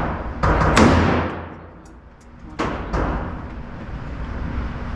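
Gunshots at a shooting range: two sharp reports close together in the first second, then two more a little under two seconds later. Each one echoes and fades for about a second.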